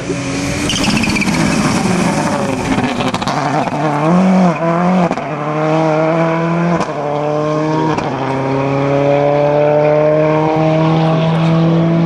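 Subaru Impreza rally car's turbocharged flat-four passing at speed, then accelerating hard away, revving up through the gears with several quick upshifts.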